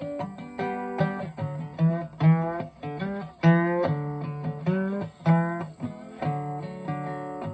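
Instrumental break in an acoustic country song: acoustic guitar picking a melody, each note plucked and left to ring, about two notes a second.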